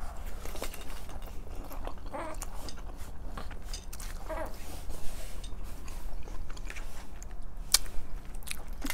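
Two people eating spaghetti close to the microphone: strands being slurped in, wet chewing and scattered mouth clicks and smacks, with a couple of brief hums.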